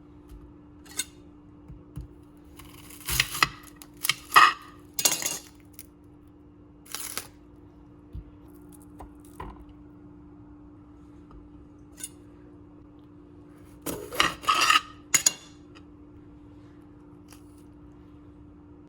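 Kitchenware clinking and clattering in a few short bouts, with single light knocks between, over a steady low hum.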